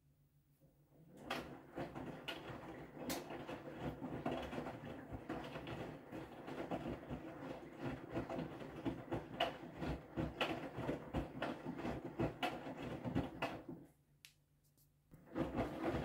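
Whirlpool FreshCare+ front-loading washing machine in its wash phase, its drum turning the wet load. About a second in the drum starts tumbling, with the load sloshing and clattering for about twelve seconds. It stops for a second or so, then starts turning again near the end.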